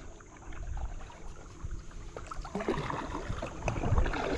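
Paddle strokes in shallow creek water: splashes and drips, growing busier and louder after about two and a half seconds, over a low rumble.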